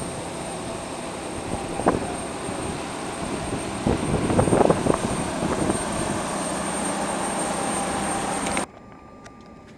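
Steady high whine and rumble of jet aircraft on an airport apron, with a few knocks of footsteps on a metal boarding stairway partway through. The noise cuts off suddenly near the end, leaving a much quieter cabin hum.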